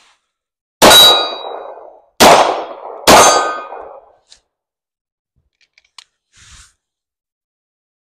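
Three shots from a Staccato P 2011 9mm single-action pistol, the second about a second and a half after the first and the third less than a second later, each ringing out for about a second.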